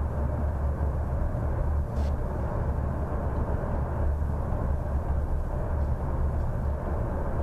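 Steady low rumble of engine and road noise inside the cab of a Scania coach with a 400 hp engine and 12-speed automated gearbox (Marcopolo New G7 body), cruising through a road tunnel. A faint click about two seconds in.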